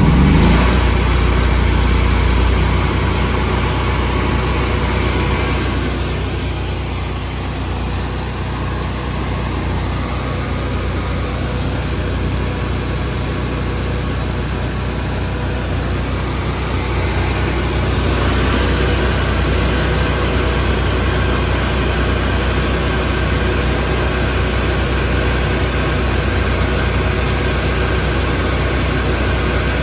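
Miller Bobcat 225 welder-generator engine running steadily just after starting. About two-thirds of the way through, a higher steady whine joins the engine note.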